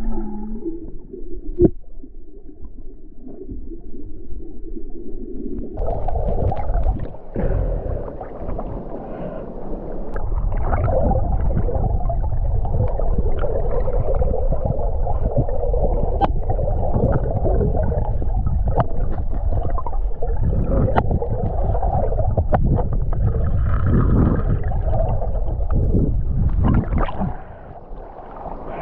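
Muffled water noise heard through a submerged camera: a low rumbling gurgle with scattered sharp clicks and taps. It grows louder and fuller about six seconds in and falls away just before the end.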